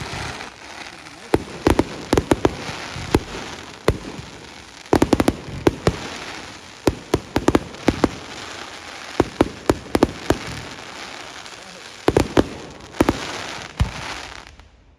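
Fireworks going off: clusters of sharp cracks and pops over a steady crackle, with no pause between them. The sound cuts off suddenly at the end.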